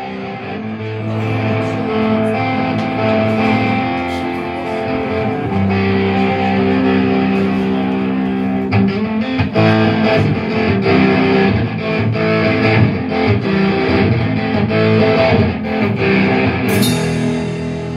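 Live rock band playing loud electric guitars, bass and drums, with long held guitar chords; the drums hit more often from about halfway through.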